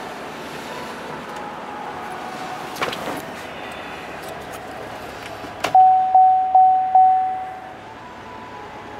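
Truck cab warning chime dinging four times, evenly spaced about a third of a second apart, each ding fading away, just after a sharp click. A steady low background hum runs underneath.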